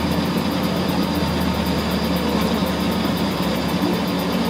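Steady low mechanical hum of a metal lathe's motor running, with the deepest part of the hum easing off about three and a half seconds in.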